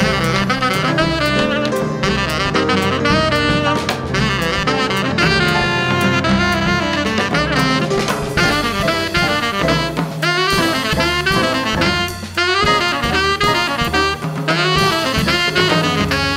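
Live jazz quartet playing: a tenor saxophone leads in fast runs of notes over piano, double bass and drums.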